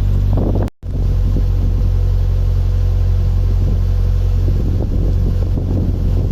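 Narrowboat's diesel engine running steadily under way, a low hum, with strong wind noise on the microphone. The sound drops out briefly just under a second in.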